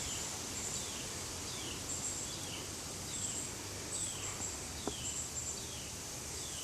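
Outdoor insect and bird ambience: a high, pulsing insect trill and a short falling chirp repeating roughly once a second, over a faint low hum.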